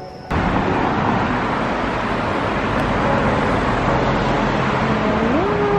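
Street traffic: a steady rush of passing cars that starts suddenly just after the opening, with a rising tone near the end.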